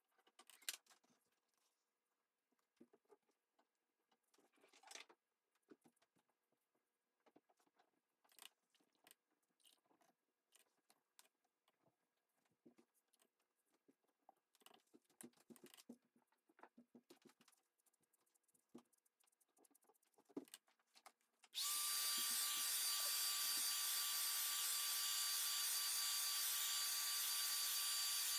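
Faint brush strokes and dabs on watercolour paper. About 21 seconds in, a hair dryer switches on and runs steadily with a whine, drying the wet paint.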